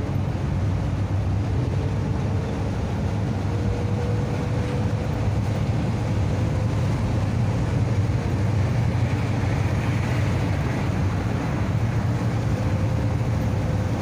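Volkswagen Kombi van driving at a steady speed, heard from inside the cabin: a steady low engine drone with road noise.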